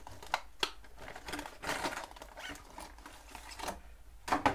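Stiff clear plastic blister packaging of a large rat-shaped fishing lure crinkling and clicking as it is pulled out of its cardboard sleeve and opened. The sound is a string of scattered clicks and rustles, with a few sharper clicks near the end.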